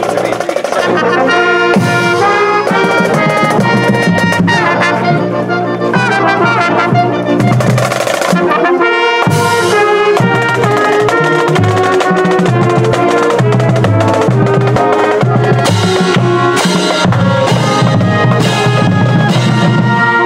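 A marching band plays a tune: brass horns carry the melody over drums, loud and steady throughout.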